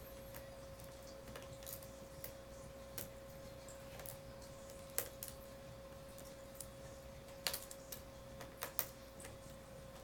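Small screwdriver clicking and scraping against tiny screws and the plastic case of a laptop as the screws are driven back in. Scattered light clicks, the sharpest about five seconds in and a quick cluster near the end, over a faint steady hum.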